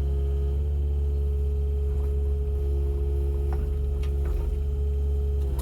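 Kubota mini excavator's diesel engine running steadily, heard from inside the cab as a constant low hum with a thin steady whine above it and a few faint clicks.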